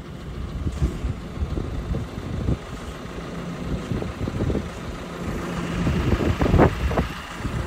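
JCB telehandler's diesel engine running at idle, a steady low rumble with a faint hum, while the machine holds a load on its boom. A brief louder sound rises over it about six and a half seconds in.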